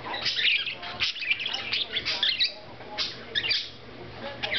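Budgies chirping and chattering at close range: a busy stream of short, high chirps and warbles with only brief pauses.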